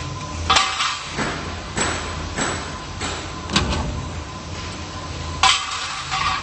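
Steel channel roll forming line running with a steady low hum and a thin high whine, broken by about six sharp metal clanks at irregular intervals, the loudest about half a second in and near the end.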